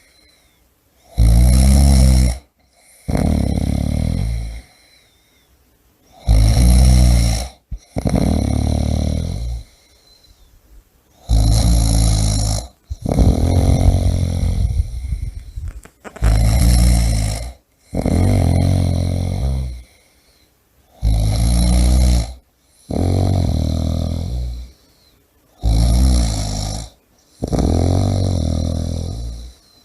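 A person snoring steadily, about six breaths at roughly five-second intervals: each a loud snore followed by a quieter breath out, with short silences between.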